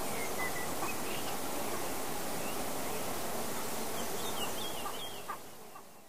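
Summer nature ambience: a dense, steady chorus of animal calls with short bird chirps over it, fading out near the end.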